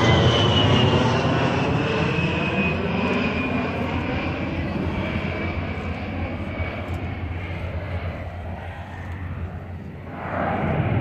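Aircraft engine noise from a plane flying past at an air show, with a high whine that slowly falls in pitch while the roar fades as it moves away. A short rush of louder noise comes near the end.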